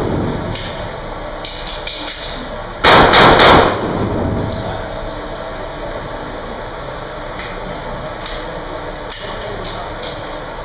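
Handgun shots on an indoor range, a fast string of about four about three seconds in, each echoing off the range walls.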